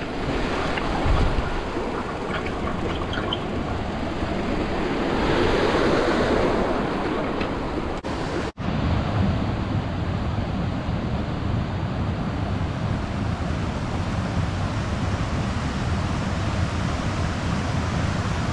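Rushing of a rocky creek cascading over boulders. In the first half it is mixed with the rattle of a mountain bike riding down the gravel trail to the water; after a brief break about halfway, it goes on steadily on its own.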